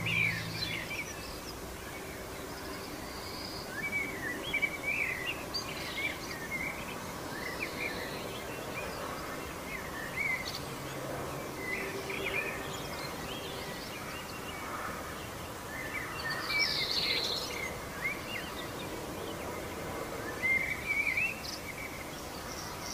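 Outdoor ambience: a steady background hiss with small birds chirping on and off.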